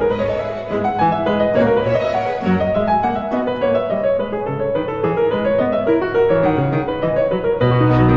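Background music: solo piano playing a classical-style piece of quick, flowing notes, with a low sustained note, like a cello, coming in near the end.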